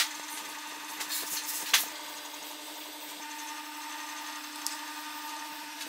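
Pine blocks being handled and fitted into a wooden jig with aluminium angle guides: wood rubbing, with a few sharp wooden knocks in the first two seconds, the loudest just before two seconds in, over a steady low hum.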